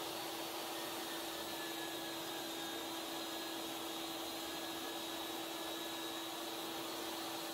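Workshop machinery, a table saw with vacuum dust collection, running with a steady, faint whir and a constant hum.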